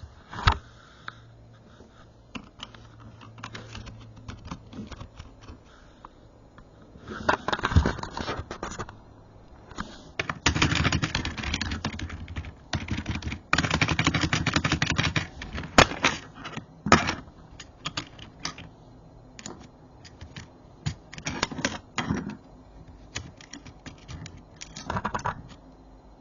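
Typing on a Logitech K270 membrane keyboard: bursts of rapid key presses, the longest runs a little past the third of the way in and again just after, with pauses and scattered single keystrokes between.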